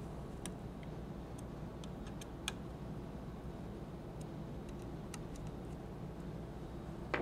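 Scattered faint clicks and ticks as a laser head mount is hand-tightened onto a CNC router's spindle holder, over a steady low background hum.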